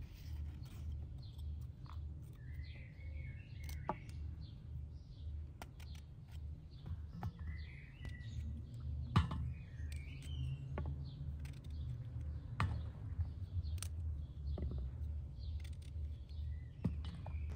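Small birds chirping on and off, with a few sharp clicks from a knife cutting through tough eggplant stems, over a low steady rumble.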